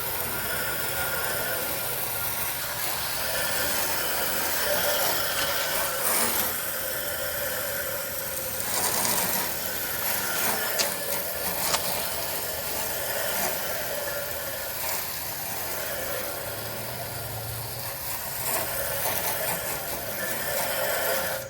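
Garden hose spray nozzle rinsing the outdoor coil fins of a heat pump, a steady hiss of water spray on a gentler setting than jet, because the coils are already damaged.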